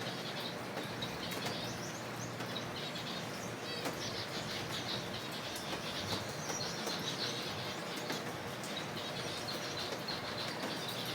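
A colony of zebra finches calling together: a steady, overlapping chatter of many short, repeated chirps.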